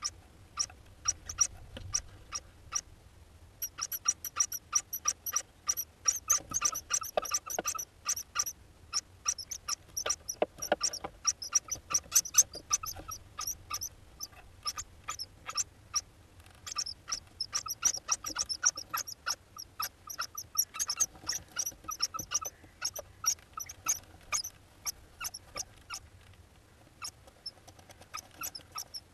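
Eurasian hoopoe chicks calling: a fast, continuous stream of short, high squeaky notes, several a second, in long runs with a brief lull near the start and another midway.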